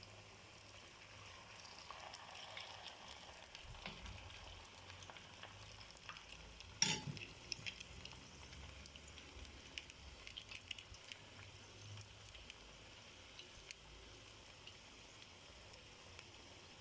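Potatoes sizzling as they fry in hot oil in a pan, with scattered light clicks of a utensil and one sharper knock about seven seconds in.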